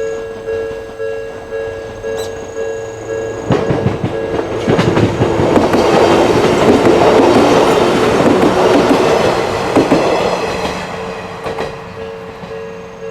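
Electronic level-crossing bell with the Odakyu-style tone, ringing in repeated strikes about twice a second. From about three and a half seconds in to about eleven seconds a train runs over the crossing, its wheels clattering over the rail joints and drowning the bell, which is heard again once the train has gone by.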